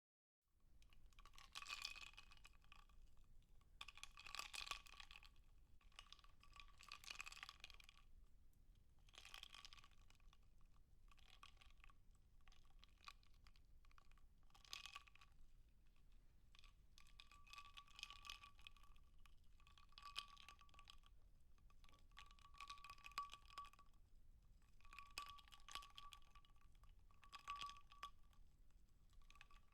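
Faint bursts of rapid clicking and crackling, each lasting a second or two and coming every couple of seconds, over a faint steady high-pitched tone.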